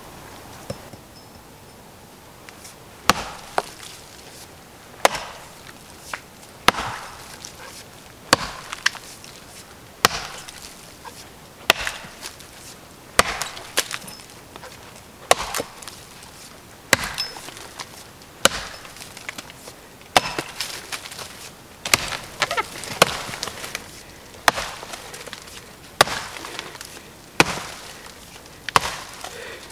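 A Cold Steel Trail Boss axe chopping into a large fallen softwood evergreen log. It lands sharp, woody strikes about every one and a half to two seconds, starting about three seconds in.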